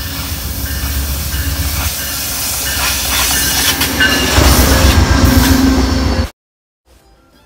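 Amtrak passenger train passing at speed close by: a diesel locomotive's low rumble and rushing wind build as it approaches, loudest as the locomotive and passenger cars sweep past. The sound cuts off suddenly about six seconds in.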